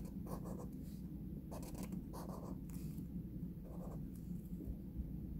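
Felt-tip marker drawn across paper in short, quick strokes, each a brief scratchy rasp, several in a row with short pauses between. A steady low hum runs underneath.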